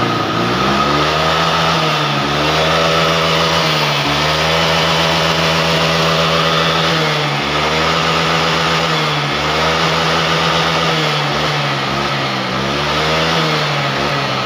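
Honda Vario 125 FI scooter's single-cylinder four-stroke engine revved on the throttle. Its pitch climbs about a second in, then dips and rises again several times as the throttle is eased off and reopened. This is a test run after a repair aimed at the engine's severe stuttering (brebet).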